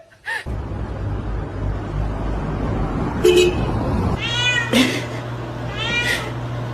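A domestic cat meowing twice in the second half, each meow an arching call, over a steady low hum.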